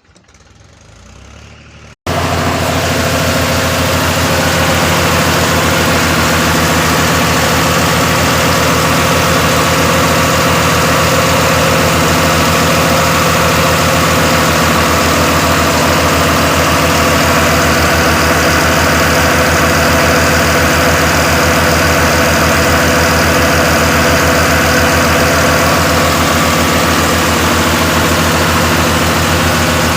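Road roller's diesel engine idling steadily. It comes in suddenly and loud about two seconds in, after a faint start.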